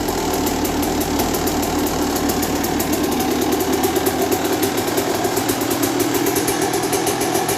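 2001 Yamaha YZ125's single-cylinder two-stroke engine idling steadily with a fast, even popping beat, on its first run after a fresh rebuild.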